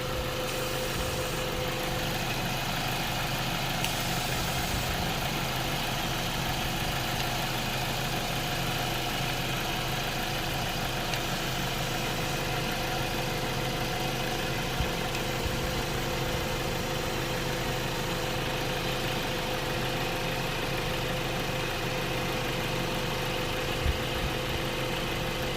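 Car engine idling steadily with the air-conditioning compressor engaged, a constant even hum with a couple of faint clicks.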